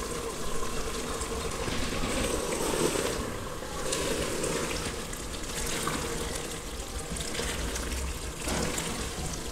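Mutton and potato curry sizzling and bubbling in an aluminium pressure-cooker pot as it is fried down over high heat, its liquid cooking off. A wooden spatula stirs it.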